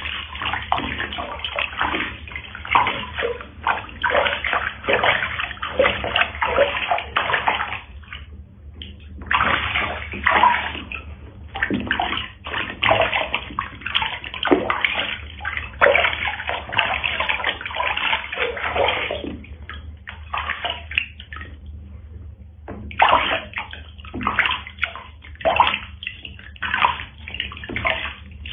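Water sloshing and splashing in a small plastic tub as hands scoop and pour water over a cat during its bath, in an irregular run of splashes and trickles with brief lulls about eight and twenty-two seconds in.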